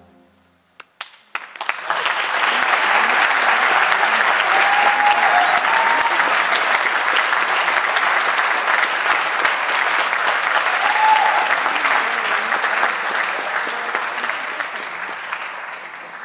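Audience applauding: a few scattered claps about a second in, then full applause swelling up and holding, with a couple of short whistles, fading near the end.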